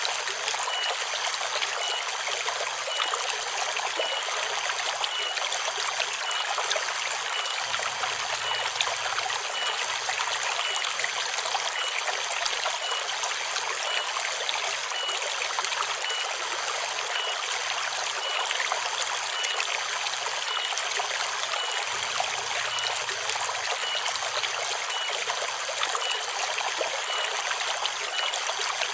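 Forest river water running steadily, a continuous rush of flowing water. A faint high pip repeats about once a second behind it.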